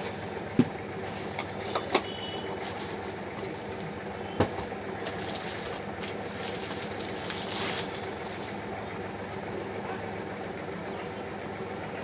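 Hands unpacking ceiling-fan parts from a cardboard box: a few sharp knocks and plastic wrapping rustling, over a steady mechanical hum.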